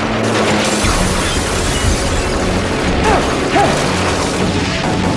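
TV action-scene soundtrack: music with sustained low notes under dense mechanical sound effects.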